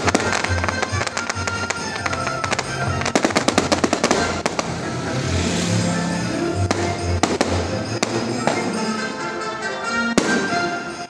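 Fireworks crackling and popping in rapid clusters of many small bangs, over music with a steady bass beat played on loudspeakers.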